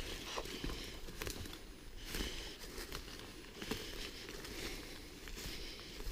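Footsteps pushing through dense forest undergrowth, with leaves and brush rustling in irregular rushes and small twigs snapping.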